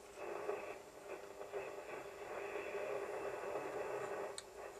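Realistic DX160 communications receiver's speaker giving out hiss and static on the medium-wave band, cutting in just after the start and swelling and fading as it is tuned. Near the end the hiss dips briefly with one sharp click. The newly recapped receiver is coming back to life on this band.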